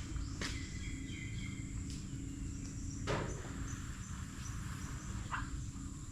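Insects droning steadily at a high pitch over a low steady hum, with a few short chirps about a second in and scattered sharp knocks, the loudest about three seconds in.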